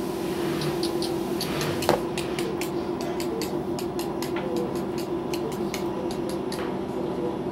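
Steady hum of a workshop machine's electric motor left running, overlaid by many quick, light clicks and taps from the cardboard pattern and synthetic sheets being handled on the cutting table.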